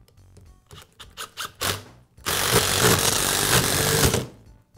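Cordless Makita impact driver running a screw into a power-tool housing, in one run of about two seconds that ends abruptly. It is preceded by a few short clicks and blips as the bit is seated and the trigger is tapped.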